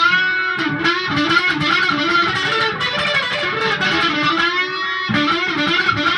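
Heritage H155 electric guitar played in a tone test: a run of quick single-note lead phrases, with several notes bent up and down in pitch.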